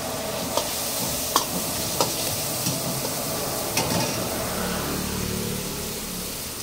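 Chopped vegetables sizzling in hot oil in a steel wok while a steel ladle stirs them, clinking and scraping against the wok about five times in the first four seconds.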